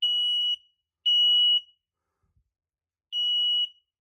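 Kidde P9050 photoelectric smoke alarm sounding on test, giving piercing high-pitched beeps of about half a second each in the three-beep-and-pause evacuation pattern. The last two beeps of one set come at the start and about a second in, then after a pause the next set begins just after three seconds in.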